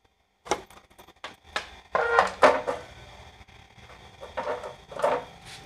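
Key turning in a motorcycle's side-panel lock and the plastic side panel being unclipped and pulled off: a run of short clicks and plastic knocks with brief squeaks, loudest about two seconds in.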